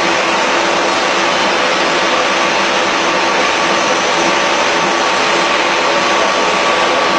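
Twin-screw food extruder running steadily while it extrudes a continuous strand of puffed snack: a loud, even machine noise with a few faint steady hum tones running through it.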